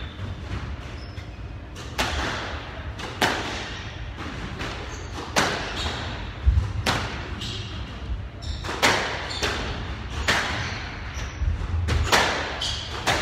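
Squash rally: sharp cracks of the ball off the rackets and the walls about every second, echoing in the court, with a few short squeaks of shoes on the wooden floor.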